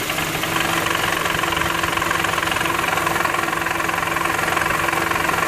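2008 Honda Civic four-cylinder engine idling with the AC compressor engaged, with a steady rapid rattle from the front of the engine bay. The rattle comes from a loose, moving part that the owner thinks is probably the belt tensioner.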